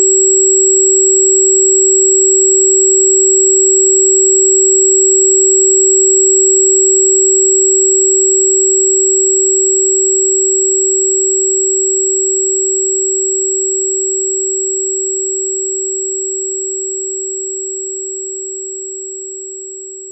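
A steady electronic sine tone near 383 Hz, the 382.605 Hz tone assigned to wolfberry root bark (Di Gu Pi). It holds at one pitch and slowly fades out over the last two-thirds.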